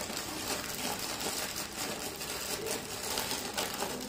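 Crinkly plastic snack packet rustling and crackling as it is handled and cut open with scissors.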